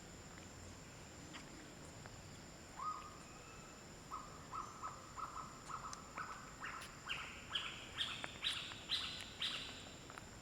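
Bird calling: a series of short whistled notes, first repeated on one pitch, then climbing step by step in pitch and getting louder toward the end.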